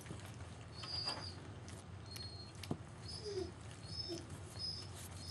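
German Shepherd puppies eating from metal pans, with scattered clinks and knocks of the pans against the bedding. Through it runs a series of short, high chirps about every half second, and a couple of soft low whimpers.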